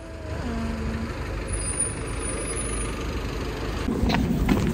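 Road traffic on a busy town street: a steady low rumble of passing vehicles, with a short steady low tone about half a second in. Near the end the sound changes to a few sharp knocks.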